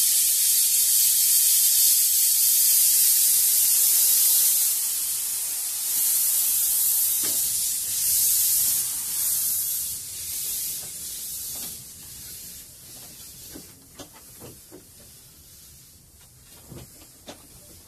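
Steam hissing loudly from the cylinder drain cocks of Hudswell Clarke steam locomotive No. 1238 as it moves off, then fading away over about twelve seconds as the cocks are closed. A few light clicks follow near the end.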